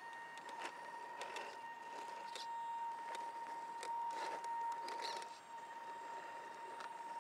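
Scale RC 4x4 crawler's electric drive whining with a steady high tone as it crawls slowly, louder in the middle. Scattered crackles and snaps from its tyres going over twigs, roots and bark, densest about four to five seconds in.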